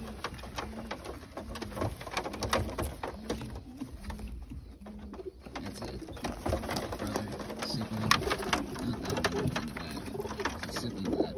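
Tippler pigeons cooing, short low coos repeating over and over, with scattered sharp clicks and knocks from the loft.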